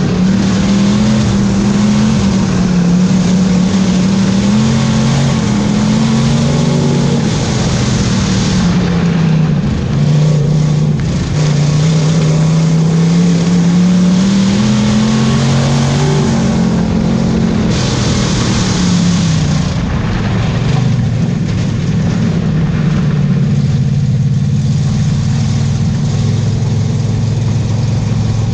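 A racing Thunder Car's engine heard from inside the cockpit, its pitch climbing and falling again every few seconds as the throttle is opened and lifted around the oval. In the last third it holds a steadier, lower note.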